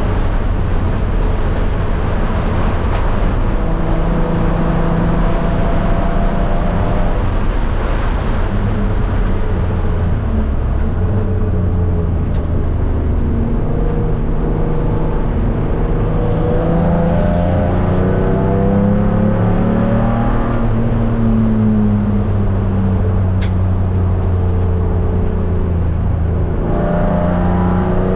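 Race car engine and road noise heard from inside the stripped, roll-caged cabin at track speed. The engine note climbs and drops several times with the throttle, rising again near the end.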